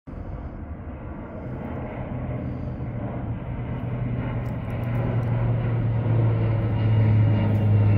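Firefighting airplane flying low overhead, its engines a steady low drone that grows louder as it approaches.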